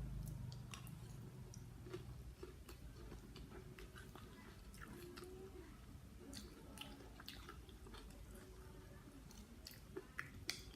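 Someone chewing a mouthful of spicy blue swimming crab salad, with scattered small wet mouth clicks and a few sharper clicks near the end.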